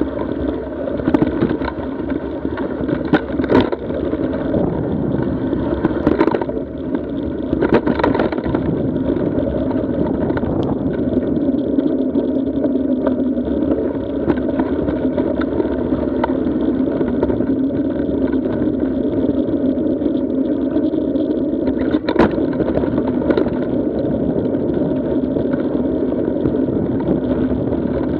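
Mountain bike riding a rocky gravel trail, heard from a bike-mounted camera: a steady rush of wind and tyre noise, broken by a few sharp knocks and rattles as the bike hits rocks.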